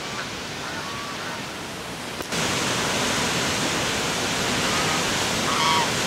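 Steady rush of a fast mountain stream and waterfall, which jumps suddenly louder a little over two seconds in. Over it, domestic geese give a few short honks, faint at first and clearer near the end.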